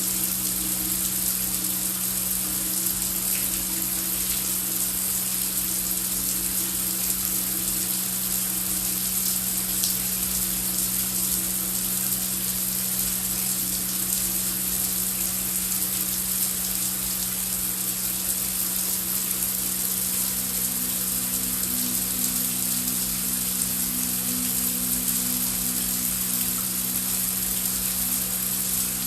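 Heavy rain falling steadily as a dense, even hiss. Underneath sits a low, held music drone of a few sustained notes, its upper note changing to a lower one about twenty seconds in.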